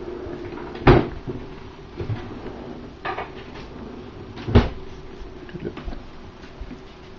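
Two sharp knocks about three and a half seconds apart, the first about a second in, with lighter clicks and taps between them over a steady low hum.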